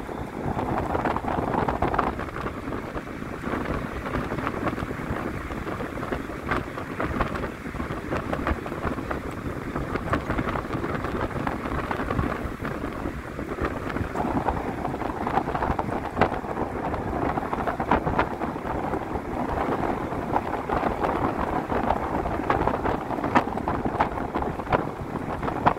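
A bus moving at speed, heard from inside: steady engine, road and wind rush with frequent short rattles.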